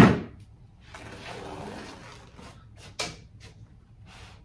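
A freshly cut strip of rubber roadbed being pulled free of the sheet and handled, a soft scraping drag lasting a second or so. A single sharp knock comes about three seconds in.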